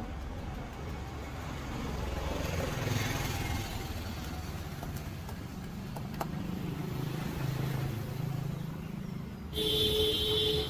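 Street traffic running past, a steady low rumble of engines, with a single sharp click about six seconds in. Near the end, a vehicle horn sounds for about a second.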